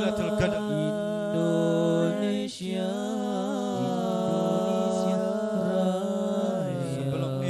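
A man's solo voice chanting a devotional melody through a microphone in long, drawn-out held notes. There is a short break for breath about two and a half seconds in, and the pitch steps down near the end.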